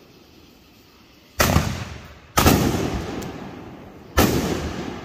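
Three loud booms from 4-inch Magnus Ghost Killer canister shells, the first about a second and a half in and the others one to two seconds apart, each trailing off in a fading echo.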